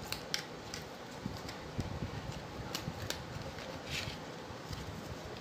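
Paper backing card being torn off a plastic blister pack by hand: scattered crinkles and short tearing crackles, the longest about four seconds in, over a steady background hiss.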